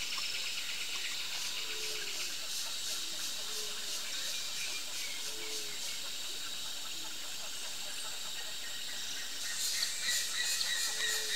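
Dense insect chorus: a steady high buzzing hiss with fast pulsing, growing louder about nine and a half seconds in. Short low calls come through faintly every second or two.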